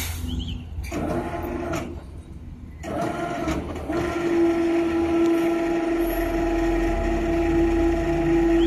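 Electric gantry crane lowering a steel coil onto a flatbed trailer. A steady pitched drone starts and stops in short spells for the first few seconds, then runs continuously, over a low rumble.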